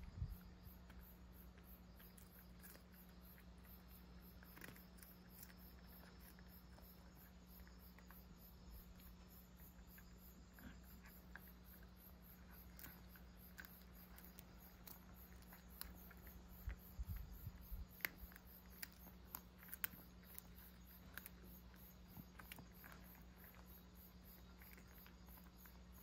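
Cat chewing and crunching dried sardines: faint, irregular crunchy clicks, busier about two-thirds of the way through, over a low steady hum.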